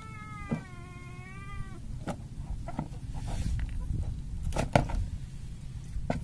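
A cat meows: one long, wavering call that ends about two seconds in. After it come scattered clicks and knocks from the fish being handled against a plastic tub, the loudest just before five seconds in.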